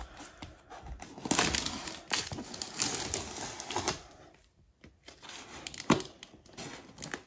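Scissors cutting through packing tape and cardboard along the seam of a shipping box: scratchy cutting and crinkling in spurts, with a brief pause about four seconds in and a sharp click near six seconds.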